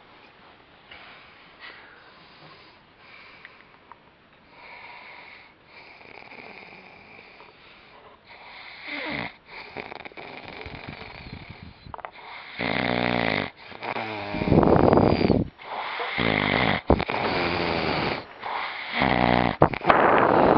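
A man snoring: soft breathing and snuffles at first, then loud, rattling snores one every second or two, growing louder from about halfway.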